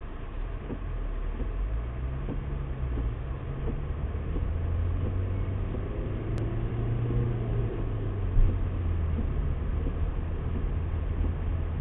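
Car engine hum and tyre noise on a wet road, heard from inside the cabin, the engine note shifting as the car pulls away and gathers speed. A brief thump about eight seconds in.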